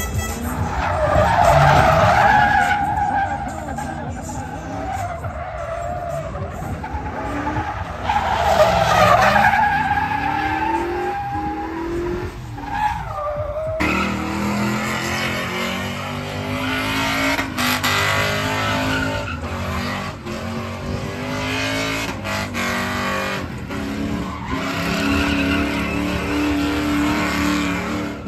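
Pickup trucks doing donuts: tires squealing in long rising and falling waves, loudest about two and nine seconds in. About halfway through, the sound cuts to a truck's engine held at high revs under steady wheelspin.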